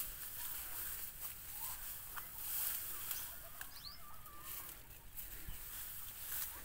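Outdoor ambience with a steady hiss and a few short, scattered bird chirps.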